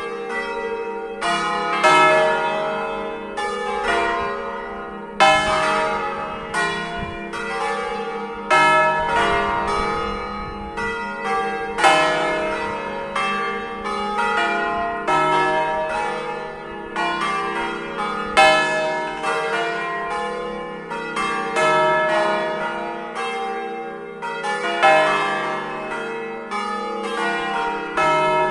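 Five swinging church bells tuned to an E-flat major scale (E♭, F, G, A♭, B♭; four cast by Giorgio Pruneri of Grosio, one by the Ottolina foundry) ringing together by hand. The strikes overlap in a steady repeating cycle, with the loudest stroke about every three seconds.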